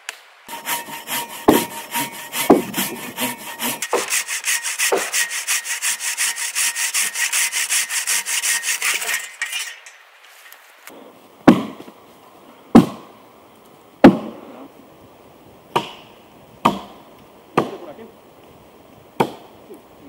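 Silky Katanaboy pull saw cutting through a beech log with rapid rasping strokes for about nine seconds, with a few knocks among them. Then it stops, and axe blows strike the wood about once a second, each a single sharp chop.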